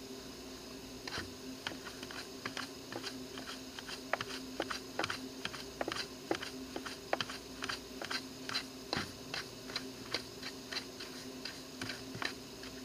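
Stiff plastic-bristled hand brush sweeping rotted-wood debris off an aluminium door threshold: a string of short, irregular scratchy clicks, about two or three a second.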